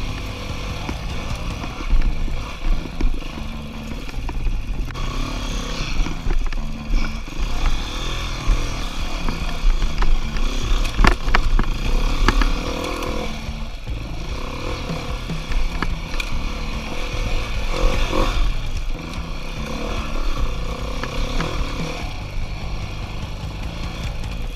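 Beta four-stroke enduro dirt bike engine running and revving up and down on a rough trail, with knocks and clatter from the bike over the terrain, loudest about halfway through.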